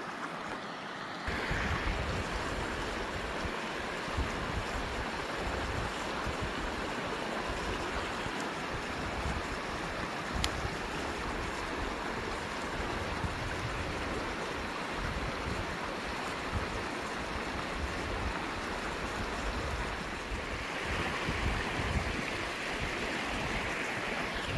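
Fast, shallow stream rushing over stones, with wind buffeting the microphone. The rush steps up in level about a second in.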